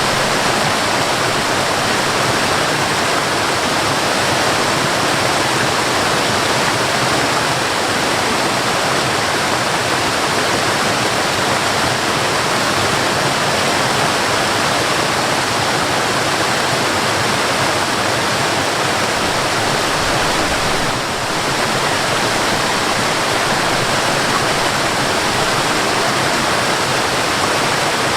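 Mountain waterfall: a steady, loud rush of falling water, dipping briefly a little past two-thirds of the way through.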